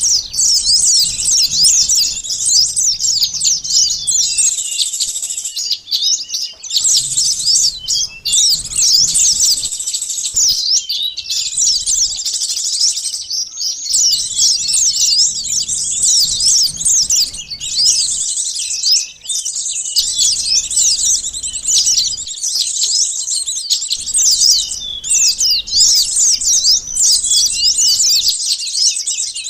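Bird-lure recording of small songbirds such as sunbirds: a dense, busy chorus of rapid high-pitched chirps and twitters from several birds at once, with short pauses every few seconds. It is played as a bait call to draw in wild small birds.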